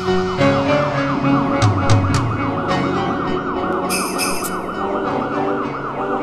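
A fast warbling siren, its pitch rising and falling about three times a second, over sustained background music with a few sharp percussive hits.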